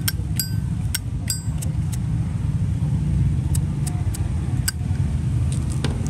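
Zippo lighter lids clicking open and shut, sharp metal clicks, some with a short ringing ping. There are about five in the first second and a half, then a few single clicks spaced out, over a steady low rumble.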